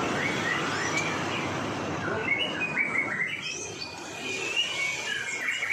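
White-rumped shama singing: a busy run of short chirps and quick rising whistled notes, thickening about two seconds in, over a steady background hiss.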